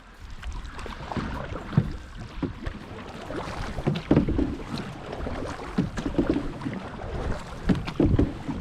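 Canoe paddles dipping and pulling through river water, with irregular splashes and knocks every second or two.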